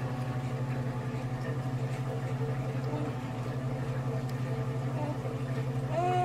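A steady low hum, with a baby giving one short vocal sound near the end.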